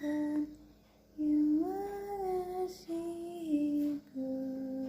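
A voice softly singing a slow lullaby to a baby in a few long, drawn-out notes with short pauses between them, the closing notes of the song.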